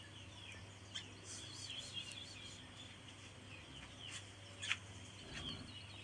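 Faint, high, wavering chirps from begging nestling birds, with a few soft clicks.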